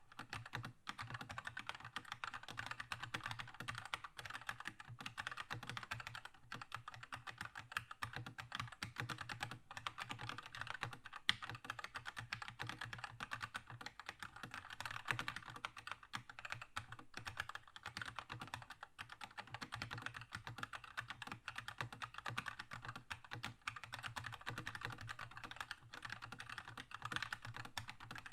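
Fast, continuous typing on a Keychron K2 mechanical keyboard with linear red switches, a dense patter of keystrokes with brief pauses and one sharper key strike about 11 seconds in.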